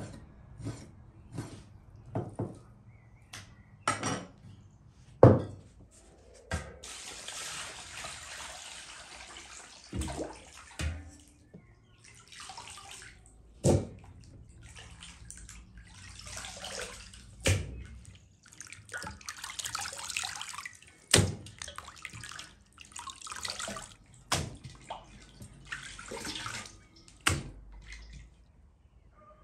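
A knife chopping raw beef on a wooden cutting board, about one sharp stroke a second. After about six seconds this gives way to hands washing the meat chunks in a bowl of water: splashing and sloshing, with a sharp knock every few seconds.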